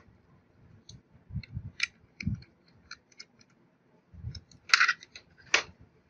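Hands handling a plastic push-button plate and its wire cable on a wooden table: scattered small clicks, taps and knocks, with a few louder sharp snaps near the end.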